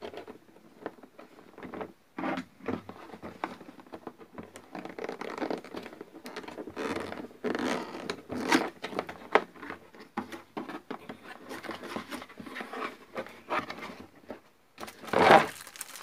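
Cardboard box being opened by hand: a run of irregular scrapes, crinkles and tearing sounds as the sealed flaps are picked at and pulled open, with a louder rustle near the end.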